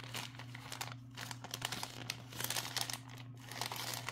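Plastic bag crinkling and rustling in irregular bursts as hands work at a vacuum-sealed bead bag, trying to get it open.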